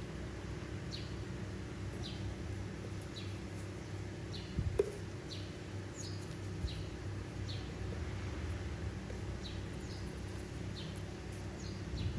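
A bird chirping: short high downward chirps, about one a second, over a steady low hum, with a single knock about five seconds in.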